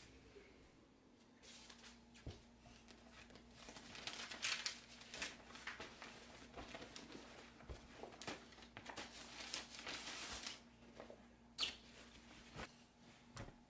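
Fabric rustling as clothes are handled and folded: irregular, faint crinkling and shuffling bursts that start a little after the beginning and are busiest in the middle, with a sharper crinkle near the end.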